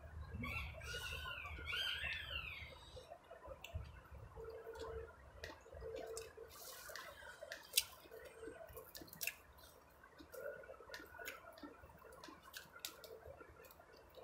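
Faint eating sounds: chewing and wet lip-smacking clicks as food is eaten by hand. High warbling chirps sound during the first couple of seconds.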